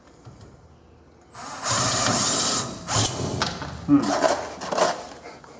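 Cordless drill driving a self-tapping screw into pre-drilled steel about a sixteenth of an inch thick. The drill runs steadily for about a second, then irregular clicks and knocks follow.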